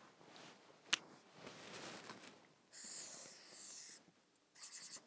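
Felt-tip marker drawn across flipchart paper: one continuous scratchy stroke lasting just over a second as a circle is drawn, then a few short quick strokes near the end as writing begins. A sharp click comes about a second in.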